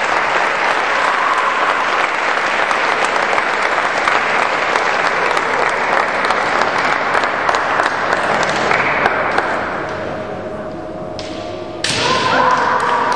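Spectators applauding steadily, the applause fading out about ten seconds in. Near the end a sudden sharp crack and a long held shout, a kendo kiai, as the fighters clash with their bamboo shinai.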